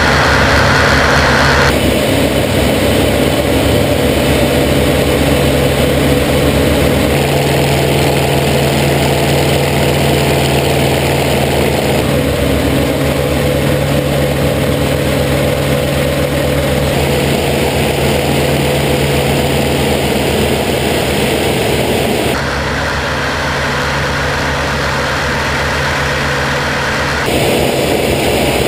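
The F4U Corsair's 18-cylinder radial engine and the airflow, heard from inside the cockpit in flight as a steady, loud drone. The tone shifts abruptly about two seconds in and twice near the end.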